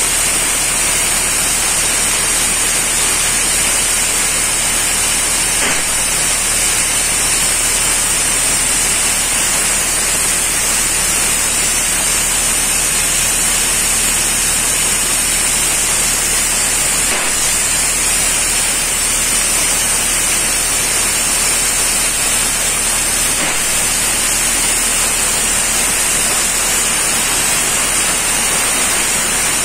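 Steady, loud hiss of airless spray-painting equipment at work, with an even high, bright hiss and no breaks.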